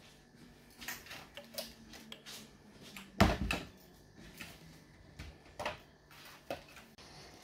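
Scattered light clicks and knocks from handling, with one louder thump about three seconds in.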